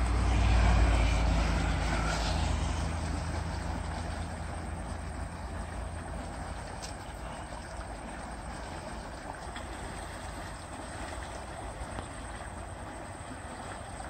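A motor vehicle passes on the road over the culvert, its engine loudest about a second in and fading over the next few seconds. Under it runs the steady rush of water pouring out of a concrete culvert.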